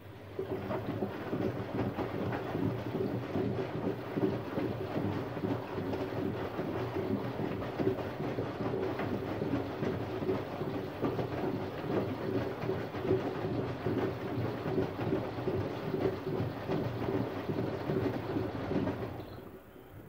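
Siemens Siwamat IQ front-loading washing machine turning its drum: the motor hums with a steady tone over the noise of the laundry tumbling. It starts about half a second in and stops about a second before the end.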